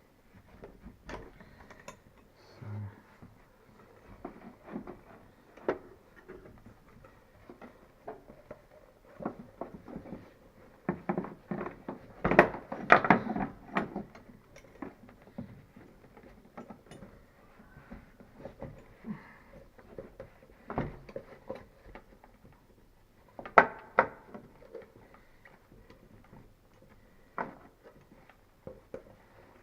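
Handling noise from fitting a new rubber motorcycle seat over its metal brackets: scattered clicks and knocks, a busier spell of clattering a little before halfway, and a sharp knock about two-thirds through.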